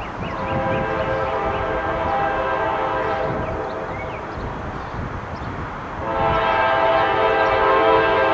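Air horn of an approaching CSX freight train's GE Evolution-series diesel locomotive, sounded as two blasts: one of about four seconds, then after a short pause a second, louder blast from about six seconds in that is still sounding at the end.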